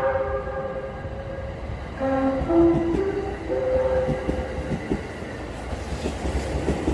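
JR West 681/683-series limited-express train sounding its electronic music horn, a melody of stepped notes in two phrases, the second starting about two seconds in and joined by its air horn. From about four seconds in, the passing train's wheels rumble and click over the rail joints.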